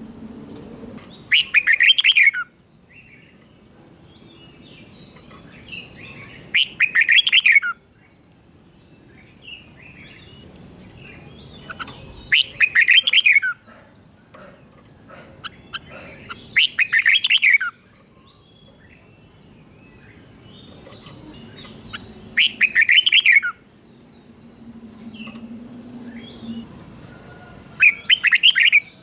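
Red-whiskered bulbul singing its doubled ('เบิ้ล') song, a loud rapid phrase of about a second repeated six times, roughly every five seconds. Softer chirps fill the gaps between phrases.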